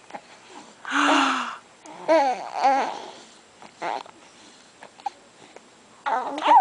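Infant babbling and vocalizing while being spoon-fed, in several short bursts, some with a wavering pitch.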